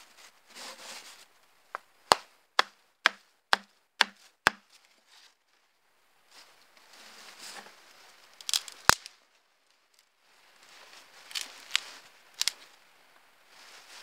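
Stainless hunting knife chopping into a wooden stick: about six sharp strikes, roughly two a second. Then rustling of leaves and grass, broken by a loud sharp crack and a few lighter snaps.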